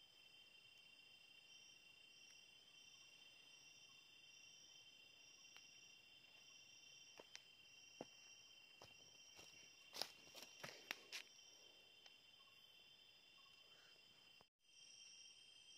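Night insects of a tropical forest trilling steadily and faintly in several high pitches, one of them pulsing about once a second. A short cluster of sharp cracks and clicks comes about halfway through.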